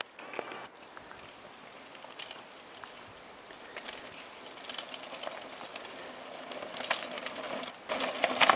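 Mountain bikes riding down a loose, stony dirt trail, their tyres crunching and clicking over gravel and rocks, getting louder as the riders come closer over the last few seconds.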